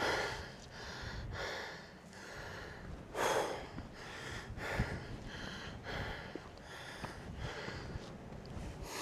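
A man breathing hard from the exertion of a steep uphill climb, with loud, heavy breaths about every second and a half.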